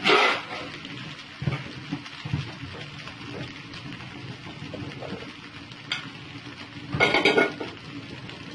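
A spatula stirring and scraping stir-fried noodles in a hot pan over a faint sizzle. There are two louder scraping stretches, one at the start and one about seven seconds in, with a few light knocks between them.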